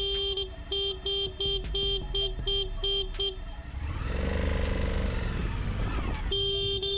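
Motorcycle horn honking at a car that will not move off at a green light: a blast, then a rapid string of short beeps, about three a second. From about halfway, the motorcycle engine revs up and back down as the bike pulls out around the car, and a long horn blast comes near the end.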